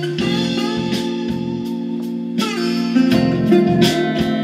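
Acoustic blues song with guitar, streamed over Bluetooth from a phone and playing through a Delco truck radio converted to Bluetooth.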